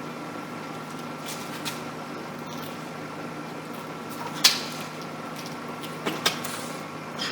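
A few sharp clicks and knocks of tools being handled while a tire puncture is plugged with a sticky-strip plug kit, the loudest about four and a half seconds in and two more close together near the end. A steady hum runs underneath.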